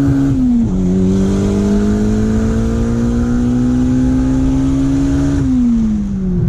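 Car engine pulling hard under acceleration: the pitch drops at a gear change about half a second in, climbs steadily through the next gear for about five seconds, then falls as the throttle is let off near the end.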